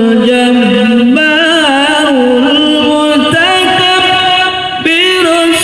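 A man's melodic Quran recitation (qiroah), amplified through a large PA speaker stack: long, ornamented held notes, stepping up in pitch partway through, with a short breath before the next phrase near the end.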